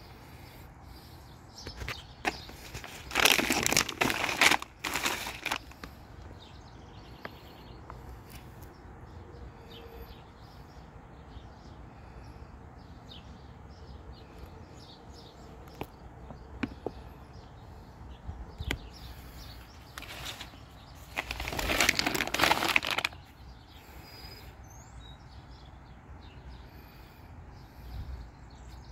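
Large plastic dry dog food bag crinkling loudly as it is handled and turned over, in two bursts: about three seconds in and again about twenty-one seconds in.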